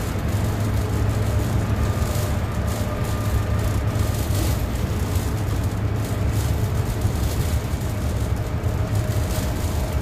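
Inside a city bus driving at speed: a steady low engine and road rumble with tyre noise, and a faint steady whine over it.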